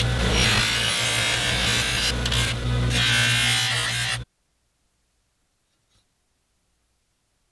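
Bench buffer motor running with a steel sword blade pressed against its spinning abrasive wheel: a steady hum under a harsh rubbing, grinding hiss. It cuts off suddenly a little over four seconds in.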